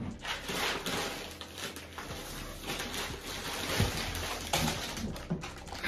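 Plastic bag and snack packaging rustling and crinkling as someone rummages through it, with a few short knocks of things being handled.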